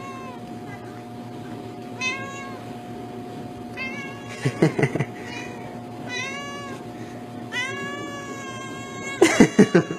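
Domestic cat meowing over and over, about six drawn-out meows a second or two apart. Twice, around the middle and near the end, there is a short run of loud, rapid pulsing sounds.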